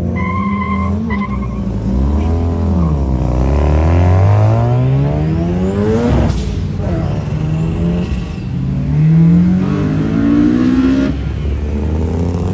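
Performance car engine revving and accelerating hard, its pitch climbing in several rising runs with short drops between them as it shifts up through the gears.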